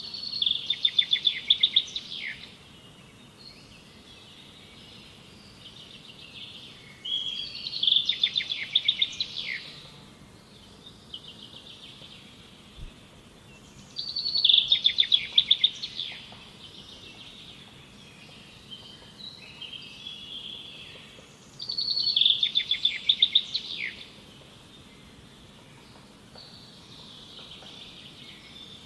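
A songbird singing the same loud, rapid trilled phrase about every seven seconds, four times in all, with softer twittering in between.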